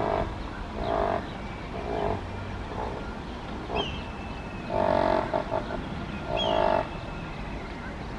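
Short croaking animal calls repeated about once a second, with a longer run of them around the middle, and a few brief high whistles from a bird.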